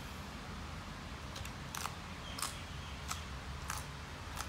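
Crisp chewing of raw greens: about six sharp crunches, roughly one every half second, starting about a second and a half in, over a low steady hum.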